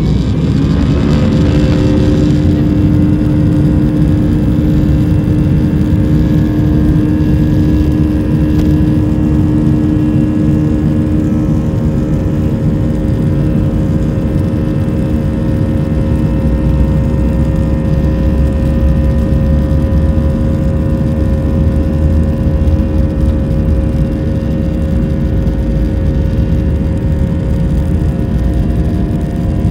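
Airliner jet engines heard from inside the cabin, spooling up to takeoff thrust: a rising whine over the first couple of seconds settles into a loud, steady drone with several held tones. A deeper rumble grows from about halfway through as the plane gathers speed on the runway.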